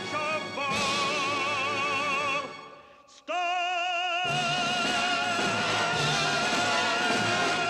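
A man singing in a full operatic voice, holding long notes with a wide vibrato, over band accompaniment. The sound fades briefly a little before the middle, then a new long note starts and the band comes in fuller about four seconds in.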